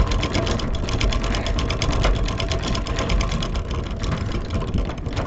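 Manual anchor windlass cranked by its handle, winding the anchor chain back in with its inner clutch slackened off: a rapid, even clicking that runs on without a break.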